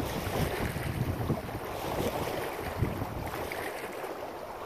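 Wind gusting across the microphone, a rumbling noise that rises and falls without pause.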